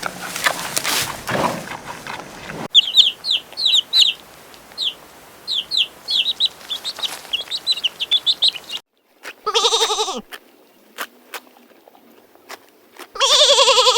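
A run of edited poultry sounds: a short noisy passage, then rapid high chirping for several seconds, a brief call at about ten seconds, and a rooster crowing that begins about a second before the end.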